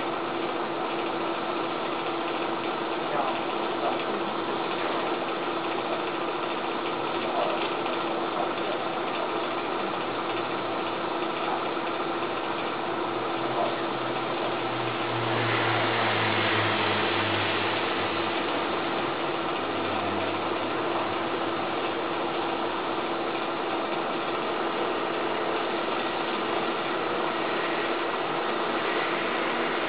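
A small motor running steadily, a constant hum under a hiss, louder for a few seconds about halfway through.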